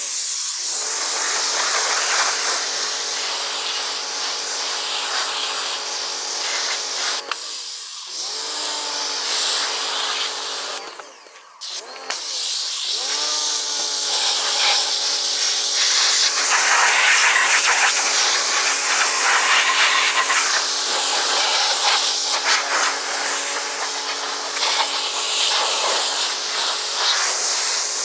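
Pressure washer running with a steady motor hum over the hiss of its water spray. Twice the motor cuts out, about a third of the way in and again near the middle, then spins back up with a rising whine, as the trigger is released and squeezed again.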